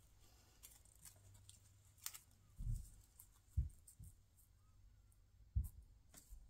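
Faint handling of a cardstock card front and ribbon on a craft mat, with a few short low thumps partway through as the card or hands bump the work surface, over a faint low hum.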